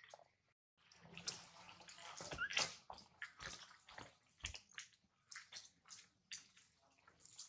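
Faint, irregular mouth clicks from a long-tailed macaque mother eating and her nursing baby, with one short rising squeak from the baby about two and a half seconds in.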